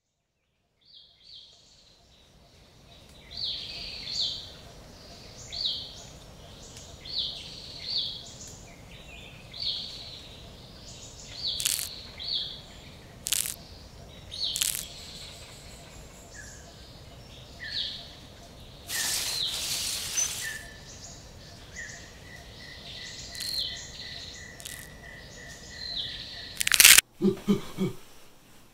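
Woodland ambience: a bird chirping over and over, about once every second and a half, with a few sharp cracks and a brief rushing swish partway through, then a steady high tone. Near the end a loud sudden hit cuts it off, followed by a short voice-like sound.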